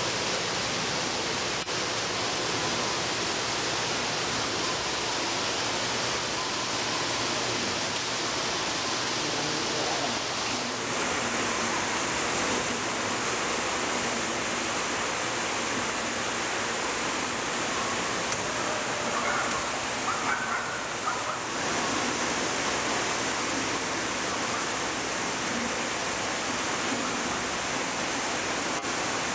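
Water pouring from an inlet pipe into a koi tank, a steady splashing rush.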